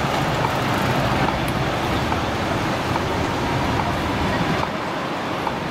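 City street traffic noise, with a tram rolling past on the nearby track: a steady rumble that eases a little near the end.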